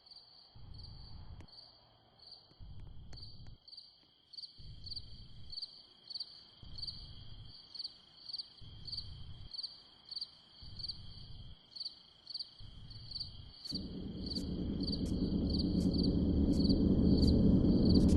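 Crickets chirping steadily in an even, pulsing rhythm, over a low rumble that comes and goes about once a second. Near the end a low rumble builds steadily louder.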